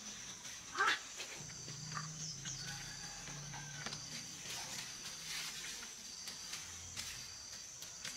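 Cucumber vines and leaves rustling, with a few light snaps and clicks, as cucumbers are picked by hand from a trellis. A steady high insect drone runs underneath, with a short rising chirp about a second in.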